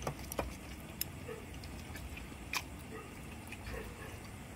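Three light clicks of chopsticks against a ceramic soup bowl, with faint eating sounds in between.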